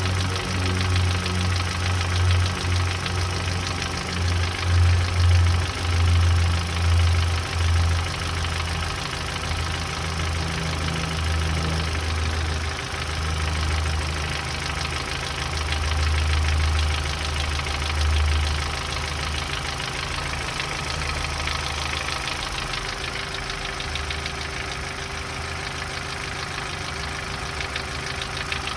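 Opel Z14XEP 1.4-litre four-cylinder petrol engine running with a fast, steady knocking tick over its low hum. The loudness swells several times in the first half, then the running settles.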